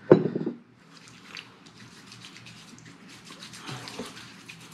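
Hands rubbing pre-shave serum into a wet face and beard: a soft, wet rubbing made of quick fine strokes, a little louder from about three and a half seconds in. A short louder sound comes right at the start.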